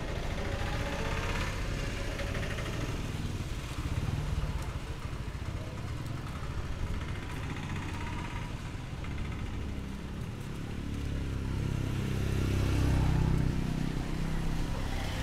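Street traffic: motor vehicle engines running past, with one vehicle passing close and loudest about twelve to fourteen seconds in.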